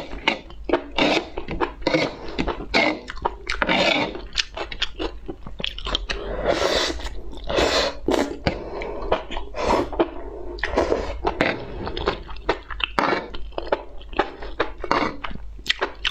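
Close-miked chewing of sauced enoki mushrooms: a dense run of wet mouth clicks and smacks, with a few longer slurps near the middle as strands are drawn into the mouth.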